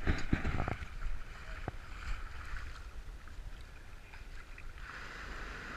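Shallow seawater splashing around a large shark held at the water's edge: a few quick splashes in the first second, then a steady wash of water.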